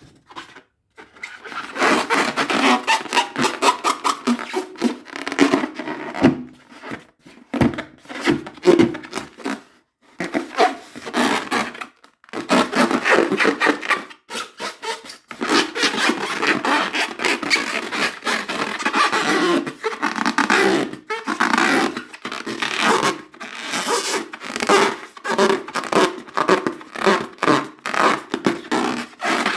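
Rubber balloons being rubbed and squeezed by hand, giving a dense run of quick scraping, crackling squeaks, broken by a few short pauses.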